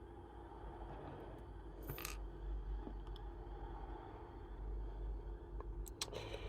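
Faint handling of a small lock being taken apart: one short scrape about two seconds in and a few small clicks near the end, over a low hum.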